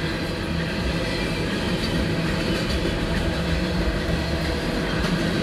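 CSX empty coal train rolling past, a steady rumble of wheels on rail with light scattered clicks, heard from inside a car.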